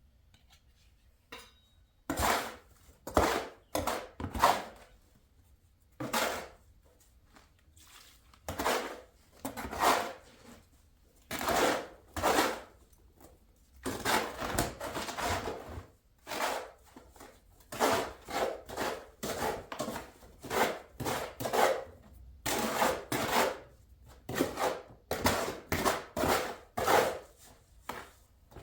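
Stiff Type S mortar being hand-mixed with a tool, scraping and stirring in repeated strokes of about a second each, with short pauses between.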